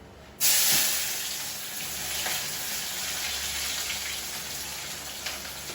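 Chopped onions dropped into hot oil in a karahi, bursting into a loud sizzle about half a second in, then frying steadily as the sizzle eases a little.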